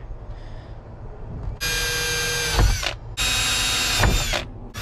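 Cordless drill drilling holes in ABS plastic. Two short runs of the motor whine start about one and a half seconds in, each about a second long, and the pitch drops as each run ends.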